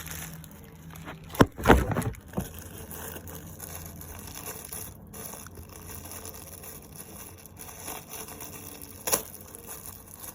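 Headphone packaging and carrying bag being handled: a cluster of knocks and rustles between about one and a half and two and a half seconds in, and one more knock near the end, over a low steady hum.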